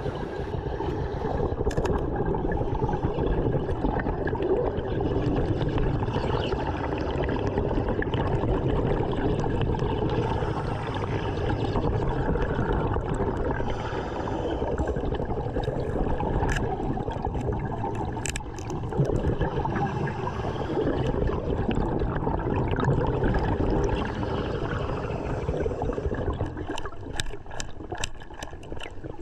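Steady underwater gurgling and bubbling from a diver's breathing, with scattered small sharp clicks.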